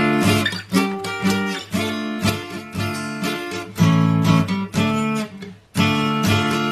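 Acoustic guitar strummed in chords, roughly one stroke every half second, with a brief break near the end.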